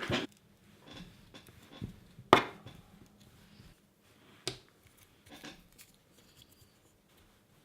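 Small fingerboard parts being handled: a few light clicks and taps, with a sharper knock about two seconds in and another about four and a half seconds in.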